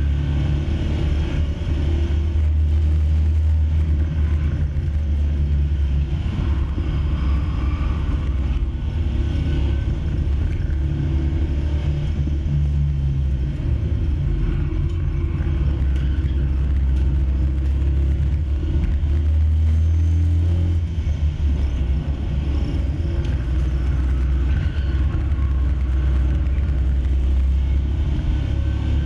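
Panhard 24 CT's air-cooled flat-twin engine running hard at track speed, heard from inside the cabin as a loud low drone that rises and falls a little with the throttle, over road and wind noise.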